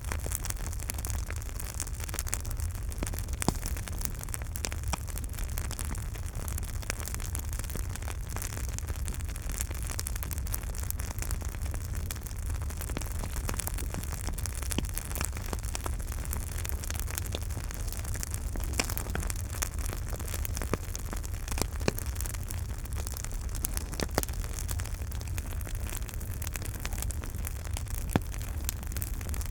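Campfire burning: a steady low rumble and hiss of flames, with scattered sharp crackles and pops of the burning wood. A few pops stand out louder, about three seconds in, around eighteen and twenty-two seconds, and near the end.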